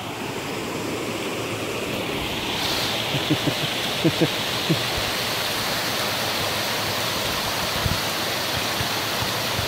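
Fast-flowing creek rushing over rocks in small cascades, a steady sound of running water. A few short knocks come between about three and five seconds in.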